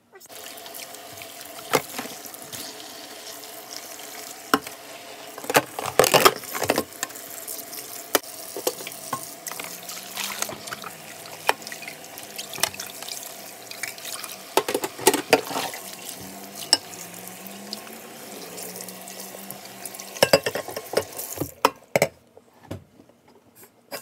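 Kitchen tap running into the sink while dishes are washed, with clinks and knocks of dishes and utensils throughout; the water shuts off about 21 seconds in, leaving a few last clatters.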